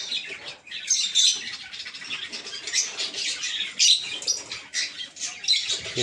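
Many caged pet birds in a breeding colony chirping and squawking at once, a continuous high-pitched chatter with a few louder calls about one and four seconds in.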